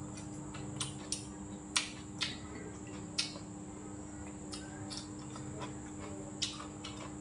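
Chopsticks and a spoon tapping against ceramic bowls and dishes while eating, about eight short, sharp clicks at irregular intervals. Under them runs a steady low hum and a faint, thin, high steady tone.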